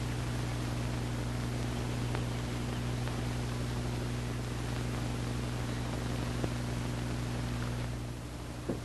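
Steady low electrical hum under a constant hiss, the kind of background noise a recording setup picks up. It drops slightly near the end, where a small click is heard.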